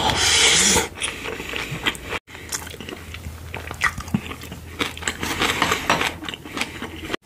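Close-miked eating of kimchi and pork belly fried rice: a loud rush of mouth noise as the spoonful goes in, then chewing with many wet clicks and smacks.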